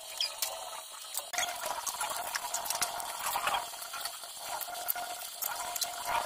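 Tap water running into a kitchen sink while dishes are washed, with frequent clinks and knocks of plates, bowls and spoons against each other.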